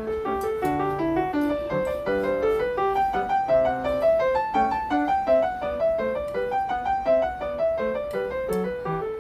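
Background piano music: a steady, quick run of short notes.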